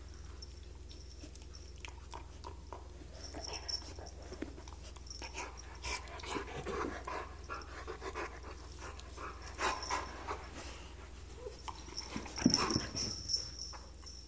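A Siberian husky and a cat play-fighting: scuffling and scattered soft knocks, with the husky's breathing and dog noises, loudest in a short flurry near the end.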